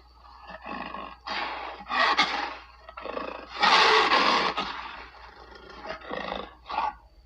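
A series of big cat roars and snarls, about eight short rough bursts of different lengths. The longest and loudest comes about four seconds in, and the last few are shorter and quieter.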